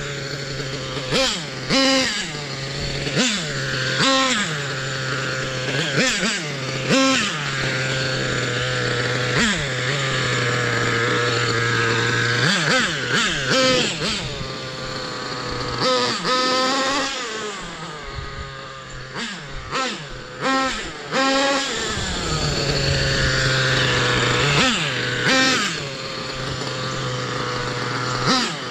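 Thunder Tiger Pro .70 BX two-stroke nitro engine in an EK4 S2 RC monster truck, revving in quick blips again and again between a steady idle. Later there is a longer stretch held at higher revs. The sound fades somewhat in the middle.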